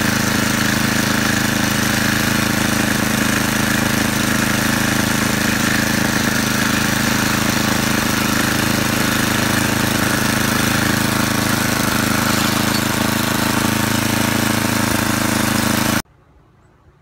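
Snowblower engine running loudly and steadily close by, cutting off suddenly about a second before the end.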